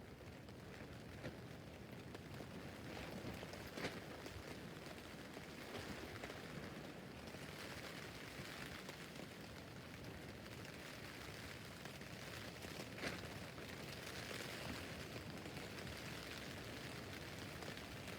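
Rain pattering steadily on a tent roof, swelling and easing, with occasional louder single drops, two of them about 4 and 13 seconds in.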